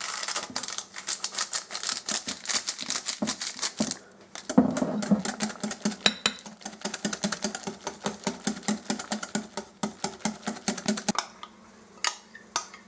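Wire balloon whisk beating thick sour cream with powdered sugar in a glass bowl: fast, even strokes with the wires ticking against the glass. A short pause comes about four seconds in, then the whisking runs on steadily and stops near the end, followed by a couple of separate clinks.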